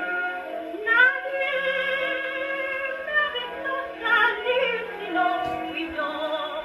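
Columbia 113a portable gramophone playing a 1927 Parlophone-Odeon 78 rpm record: a mezzo-soprano singing with a fast, wavering vibrato over accompaniment, the sound thin and lacking top end.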